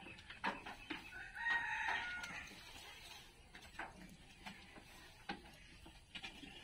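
A rooster crowing once, faintly, a little over a second in and lasting about a second, its pitch falling at the end. A few light knocks are scattered through the rest.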